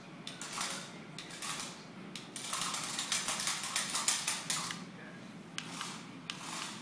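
Small toy radio-controlled car driving in short spurts, its motor and plastic gears giving a fast clicking rattle, densest from about two and a half to nearly five seconds in.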